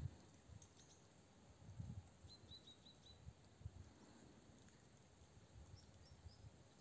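Near-silent outdoor ambience: a small bird gives a quick run of five short high chirps about two seconds in and three more near the end, over scattered soft low thumps.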